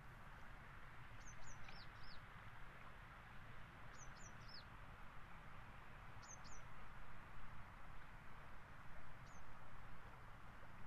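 A small bird calling: short, high chirps that slide down in pitch, in quick runs of three or four, heard four times, the last a single chirp near the end. A steady outdoor hiss lies beneath.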